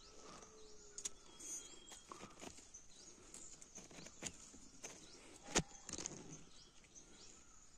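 Hand pruning shears snipping the stems of young apple fruitlets while thinning a cluster: several sharp clicks, the loudest about five and a half seconds in.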